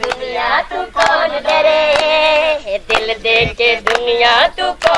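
A Punjabi folk song sung in a high voice over a steady held note, with hands clapping along in short sharp strokes.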